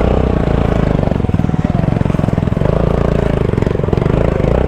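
Motorcycle engine running steadily with a rapid, even pulsing rumble, close up, as the bike is ridden slowly through shallow river water.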